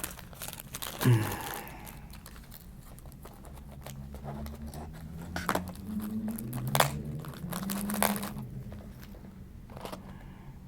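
Small clicks, taps and scrapes of hands handling an M.2 NVMe SSD and the plastic frame of its external enclosure. Sharper clicks come about a second in and again several times in the second half.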